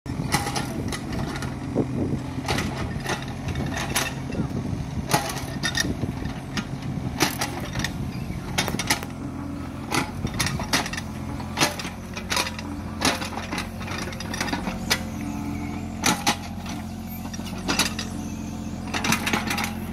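Tata Hitachi ZX33U mini excavator's diesel engine running steadily while it digs, with frequent sharp clanks and knocks from the bucket and arm linkage as the bucket scrapes and strikes the soil.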